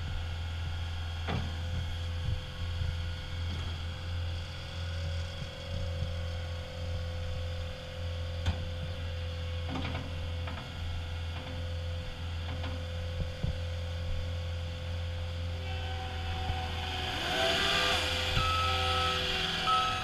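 Cat 236D skid steer loader's diesel engine running steadily with a constant whine, and a few sharp clanks as the machine moves and works its bucket. In the last few seconds the engine gets louder and a backup alarm beeps about once a second.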